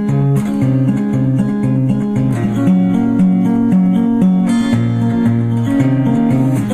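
Instrumental song intro: an acoustic guitar playing a repeating pattern of notes, before the vocals come in.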